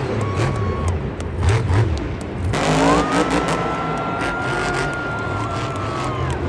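Monster truck supercharged V8 engines revving and rumbling in the arena, the pitch rising and falling in the first two seconds. About two and a half seconds in a thin high tone rises and then holds steady for nearly four seconds before dropping away near the end.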